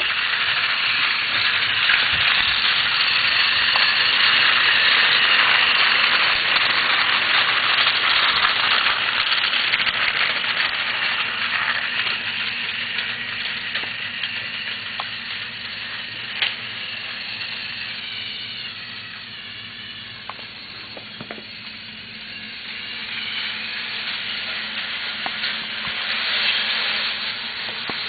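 Thomas & Friends Trackmaster battery-powered toy trains running along plastic track, a steady hissing rattle that is loudest early on and fades somewhat later. A single sharp click comes a little past halfway.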